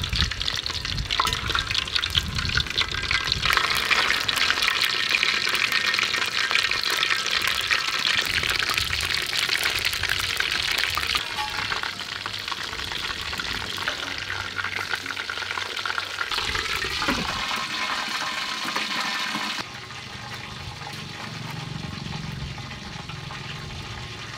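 A whole fish sizzling and crackling as it deep-fries in hot oil in a wok. About twenty seconds in the sizzling stops abruptly and only a quieter background remains.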